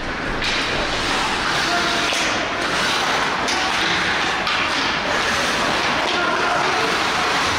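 Ice hockey play in an echoing rink: skate blades scraping the ice, with a few stick-and-puck knocks and faint players' shouts.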